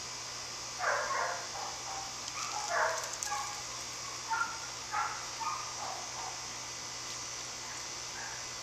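A dog barking in short, irregular barks, the loudest about a second and three seconds in, over a steady high insect drone.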